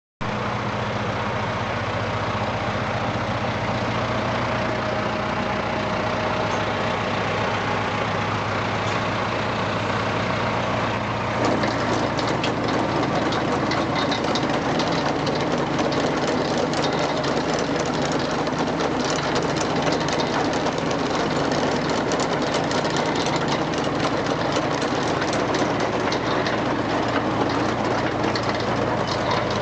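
Tractor engine running steadily, driving a Ransomes single-row potato harvester. A little over a third of the way in, a busy metallic clattering and rattling joins and keeps on: the harvester's mechanism running.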